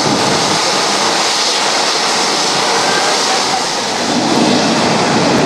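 Rolls-Royce RB211 turbofan engines of a Boeing 757-200 running at taxi power: a loud, steady rushing hiss of jet noise.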